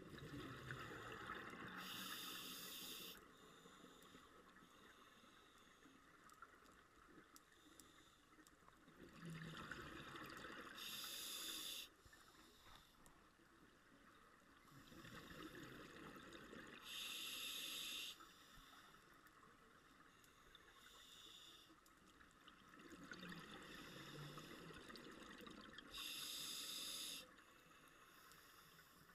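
Scuba diver breathing through a regulator underwater: four breath cycles, each a drawn hiss and a rush of exhaled bubbles, with the sharp high hiss stopping abruptly each time.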